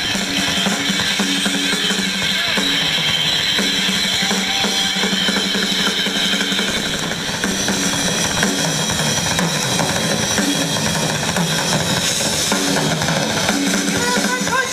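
Music with a drum kit (bass drum, snare and cymbals) playing a steady beat over held low notes.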